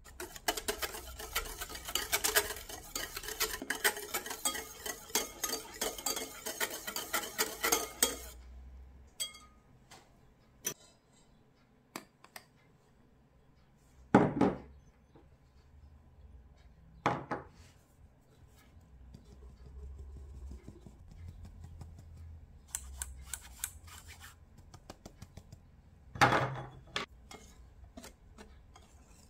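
A metal wire whisk beating a thin batter in a glass bowl: rapid, dense clinking and scraping for about eight seconds, then stopping. Later come scattered light ticks, three separate loud knocks, and another short run of quicker clicks.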